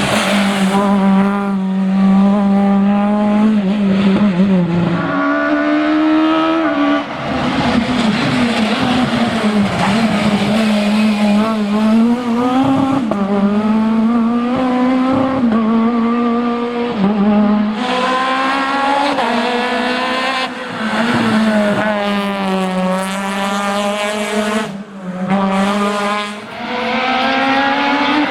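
Renault Mégane Maxi rally car's engine driven hard, its pitch repeatedly climbing and then dropping back as it shifts through the gears.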